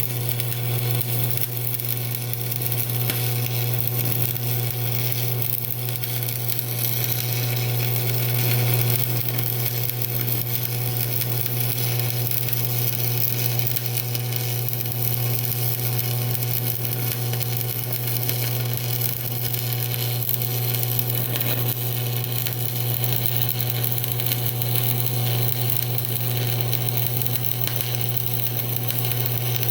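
Electric arc welding on flat bar: the arc crackles and hisses steadily without a break, over a strong steady low hum.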